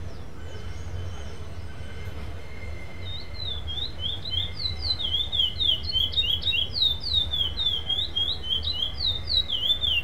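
Black male curió (chestnut-bellied seed finch) singing its contest song in the no-repetition style. From about three seconds in it gives a fast, unbroken run of short whistled notes that slide downward, over a steady low hum.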